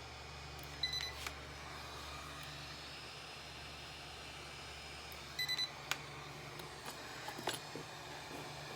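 Short electronic beeps over a steady low hum: one beep about a second in, then a quick run of three after about five seconds, with a few sharp clicks in between.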